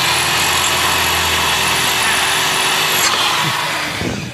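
Cordless power drill running at a steady speed, boring a hole in a motorcycle's front brake disc to seat the speedometer sensor magnet. It winds down about three seconds in.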